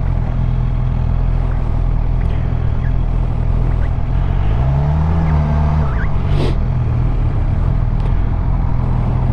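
Suzuki GSX-R750's inline-four engine running steadily at low revs, with one brief rise and fall in pitch about five seconds in.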